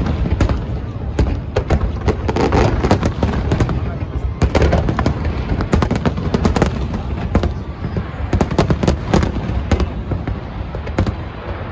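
Aerial fireworks shells bursting in rapid succession: many sharp cracks and pops over a continuous low rumble of booms.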